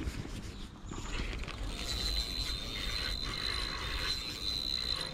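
Daiwa N'Zon spinning reel being cranked to reel in a hooked fish, its gears running with a ratcheting mechanical whir.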